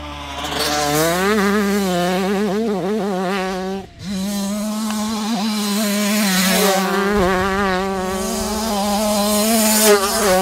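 Husqvarna TC85 85cc two-stroke motocross bike ridden hard, its engine pitch rapidly rising and falling with throttle and gear changes. It cuts out briefly about four seconds in, then holds high revs with small wavers and is loudest just before the end.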